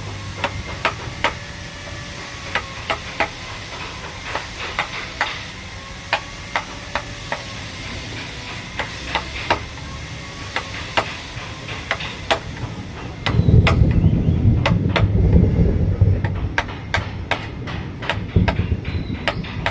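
Wood being hand-carved with hammer blows: irregular sharp taps, sometimes several a second. About two-thirds of the way through, a louder low rumbling noise joins in and the taps carry on over it.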